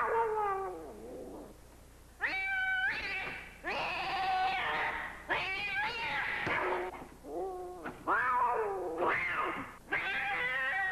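A cat yowling in a run of about eight drawn-out meows, one after another with short gaps, several of them falling in pitch at the end.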